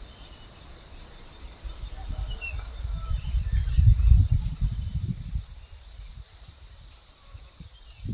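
Strong wind buffeting the microphone in gusts, a low rumble that swells about two seconds in, is loudest around four seconds and then dies down. A steady high insect drone runs underneath.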